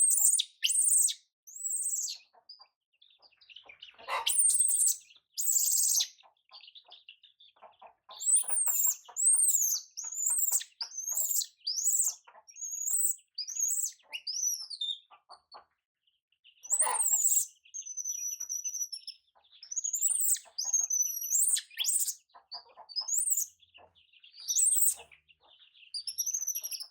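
A baby monkey screaming in shrill, repeated rising-and-falling squeals, with baby chicks peeping in the background.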